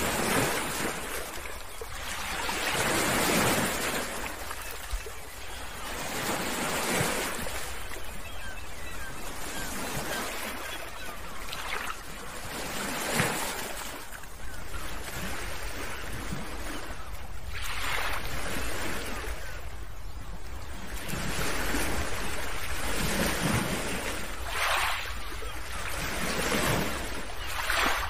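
Steady rushing noise like surf, swelling and fading every few seconds.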